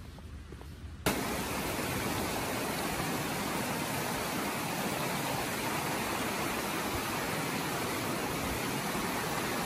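A shallow stream running over rocks: a steady, even rush of water that cuts in suddenly about a second in.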